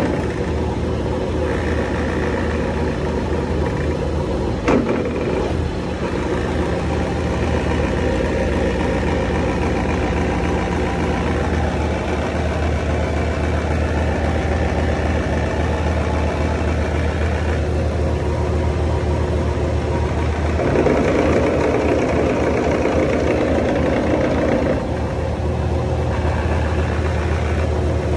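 Ship's engine running steadily while its Advance D300 marine gearbox is shifted between forward and reverse. The note changes a few times as the gears engage, with one sharp click about five seconds in. The gearbox is engaging normally both ways.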